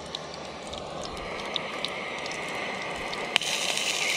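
Whole cherry tomatoes sizzling and crackling in hot oil in a small pot on a gas canister camp stove, with scattered small pops, the sizzle slowly growing louder. A single sharp click comes about three seconds in.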